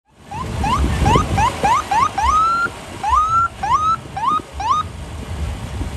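Police car siren tapped in short rising whoops, about four a second, then two longer whoops that rise and hold before cutting off, then a few more short ones before it stops near the end. The siren is being used in quick bursts to clear a path through pedestrians.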